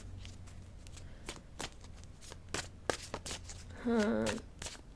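Tarot cards being handled and shuffled: a run of light, irregular card clicks and flicks. A short vocal sound comes from the reader about four seconds in.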